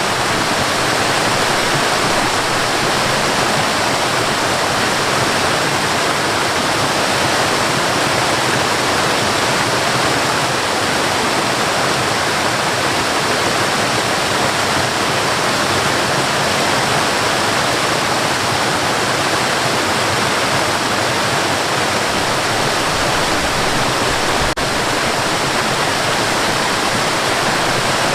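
Waterfall: a steady, dense rush of falling water, with a split-second dropout near the end.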